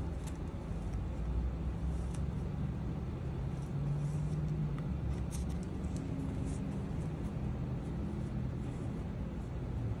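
Steady low rumbling hum, with faint short rustles and taps as a handmade paper-and-lace junk journal is turned over in the hands.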